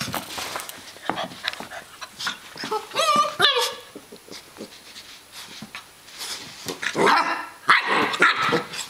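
Greater Swiss Mountain Dog puppy yipping and whining in play: a wavering whine about three seconds in and a longer run of yips near the end.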